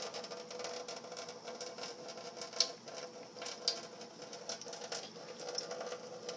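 Thin stream of tap water running into a stainless steel sink, with many irregular small ticks and splashes over a faint steady hum.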